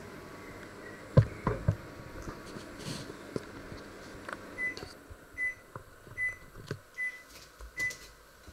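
A few knocks and bumps about a second in, then a microwave oven beeping: five short high beeps, evenly spaced a little under a second apart.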